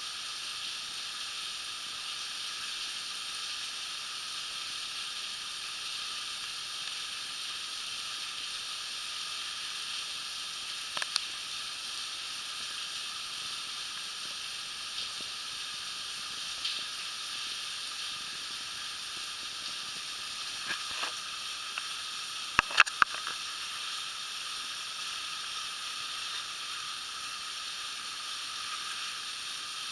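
Steady hiss of water spray falling down a wet cave shaft. A few sharp clicks sound about eleven seconds in and in a short cluster a little past twenty seconds.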